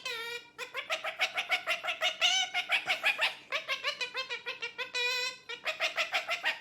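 Pet parrot calling in rapid runs of short, pitched, clucking notes, about six a second, broken by a couple of brief pauses.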